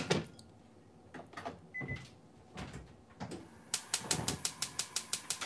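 A soy sauce bottle set down on the counter with a sharp knock, then a few light clatters and a short beep. Near the end, a gas stove's igniter clicks rapidly, about five clicks a second, as the burner under the donabe is lit.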